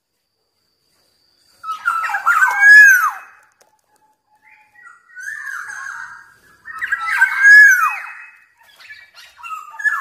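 Black-naped oriole (kepondang) singing: fluty whistled phrases with curving, down-slurred notes. Two loud phrases come about two seconds in and about seven seconds in, with quieter calls between them and near the end.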